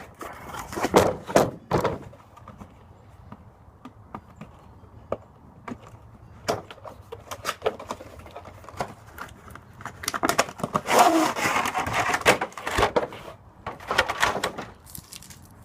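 A box being opened and the packaging handled: scattered knocks and clicks, with bursts of rustling about a second in and again from about ten to fifteen seconds.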